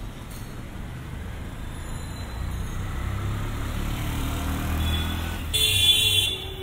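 Street traffic of motorbikes and auto-rickshaws, the engine noise growing louder as vehicles pass close by. Near the end comes a short, loud vehicle horn blast lasting under a second.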